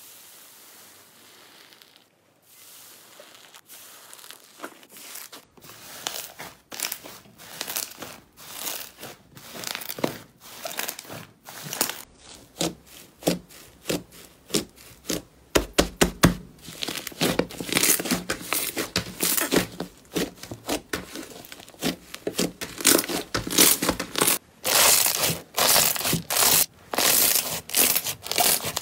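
Slime squeezed and pressed by hand: dense, irregular crackling and crinkling as air pockets and the crunchy skin of fluffy cloud-type slime pop and tear. Faint for the first few seconds, then louder and busier.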